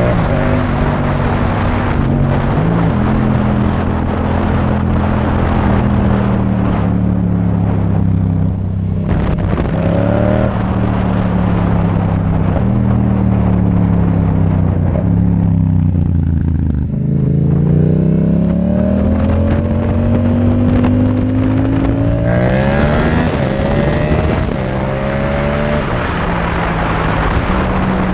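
Yamaha MT-07's parallel-twin engine running through a Mivv Delta Race exhaust while being ridden. Its pitch falls and rises with throttle and gear changes, dropping to its lowest about 17 seconds in, then climbing as it accelerates, with quick revs up through the gears a few seconds before the end.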